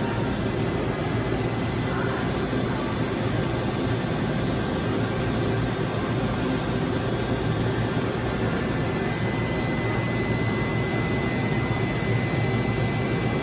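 Steady mechanical drone of running machinery with a low hum, joined about two-thirds of the way in by a thin, steady high whine.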